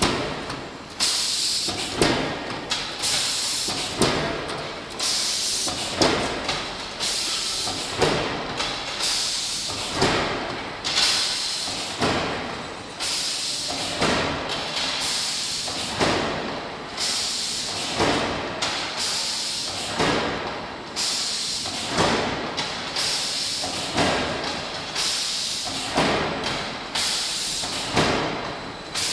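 A power press and pneumatic air feeder line cycling steadily, about once a second. Each cycle gives a sharp thud and a hiss of compressed air as the feeder advances steel strip drawn from a coil cradle.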